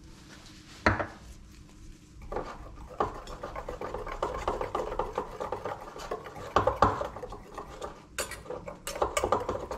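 Wire whisk beating a flour-and-water coating mix in a stainless steel bowl: a fast, continuous scraping rattle of wire against metal that starts about two seconds in. A single sharp knock comes about a second in.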